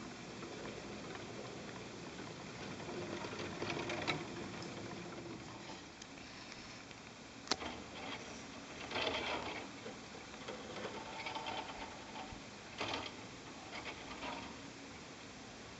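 Single-seat chairlift machinery running: the haul rope rolls over the sheave rollers with a steady mechanical rattle and irregular clicking and clattering, including a sharp click about halfway through.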